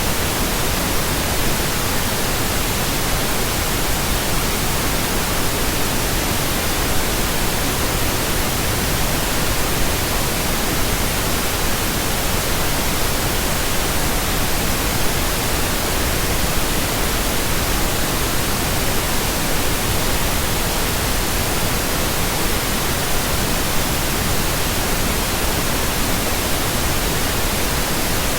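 Steady synthetic pink noise: an even, unchanging hiss across all pitches, with no tones or breaks.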